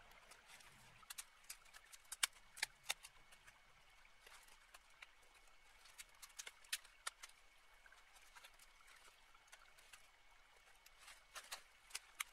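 Dry branches and twigs cracking and snapping as a brush pile is pulled apart by hand: scattered sharp snaps, the loudest a couple of seconds in and a cluster near the end, over a faint steady high tone.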